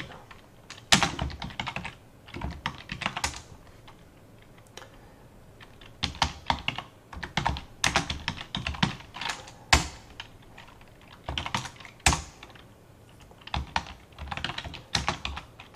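Typing on a computer keyboard: bursts of keystrokes with short pauses between them, with a few sharper, louder key strikes, one about a second in and another near twelve seconds.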